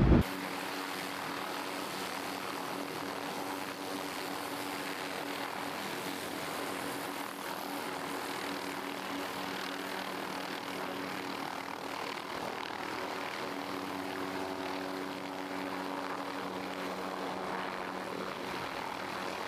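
MD 500-type light helicopters running on the ramp, one lifting into a low hover. A steady turbine and rotor noise with a constant low hum.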